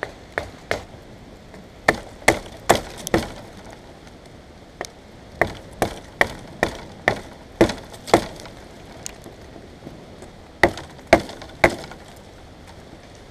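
Wood being struck with sharp, hard knocks in short runs of three to seven blows, about two a second, with brief pauses between runs.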